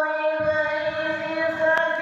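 Quran recitation (tilawat): a reciter's voice holds one long, steady melodic note, with a short click near the end.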